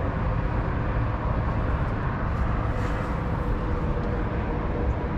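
Rivian R1T's onboard air compressor running steadily, a constant noise with a faint steady hum, while inflating a tire that still reads 47 psi against the 48 psi set.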